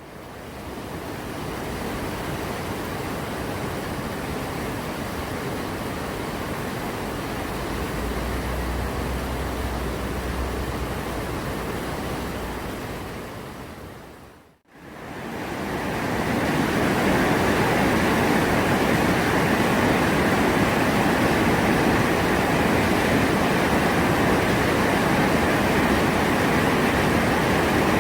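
Rushing water of a mountain valley stream, a steady even roar. It is heard in two takes with a brief fade between them about halfway through, and the second take is louder.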